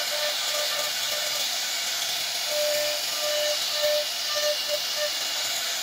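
CNC router spindle running at high speed with its carving bit cutting into khat wood, a steady high hiss. Short repeated tones come and go over it, mostly in the second half.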